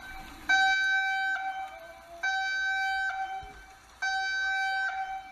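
Emergency-alert-style alarm tone: a buzzy, steady electronic beep sounding three times, each just under a second long, with gaps of about the same length.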